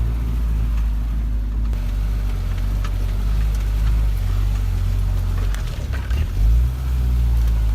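UAZ off-road vehicle's engine running steadily, with a brief rev about six and a half seconds in.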